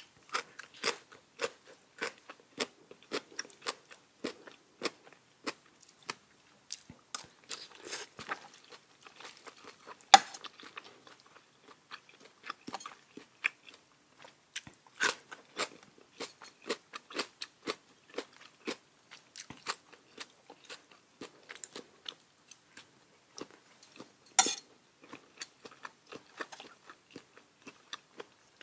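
Close-miked mouth sounds of a person chewing and crunching papaya salad: irregular crisp crunches about two a second, with a few louder bites, one about ten seconds in and another near the end.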